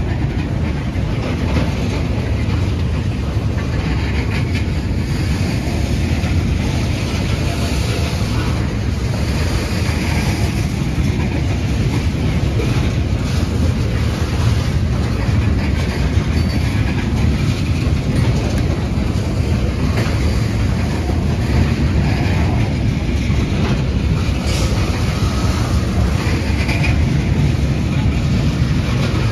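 Freight train of ethanol tank cars rolling steadily past: a continuous low rumble of steel wheels on rail, with clickety-clack as the wheels cross the rail joints.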